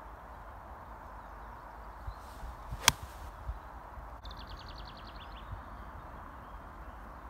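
Golf iron swung and striking the ball off the turf: a brief swish and then one sharp crack of the strike, a little before three seconds in.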